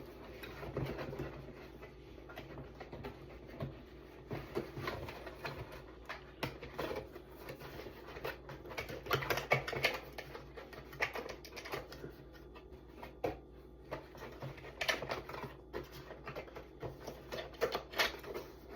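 Uneven rustling and light clicking as packaging and a charging cable are handled and taken out of a keyboard box.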